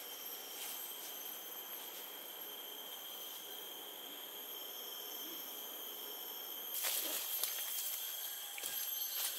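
Forest insects keep up a steady high-pitched drone on several held tones. From about seven seconds in, louder irregular rustling and crackling of leaves and twigs in the undergrowth joins it.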